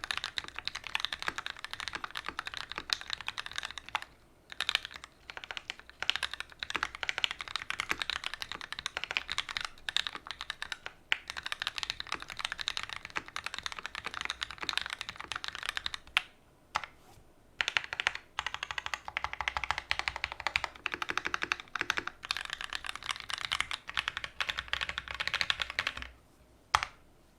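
Fast, continuous typing on an OTD 360 Corsa custom mechanical keyboard with Gateron Ink Black linear switches, an aluminium plate and GMK keycaps. Brief pauses break it up, and near the end it stops after one last single keystroke.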